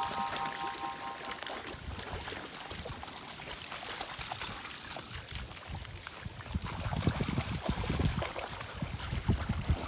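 Dogs wading and splashing through a shallow muddy stream, water sloshing around their legs, with heavier splashing from about seven seconds in.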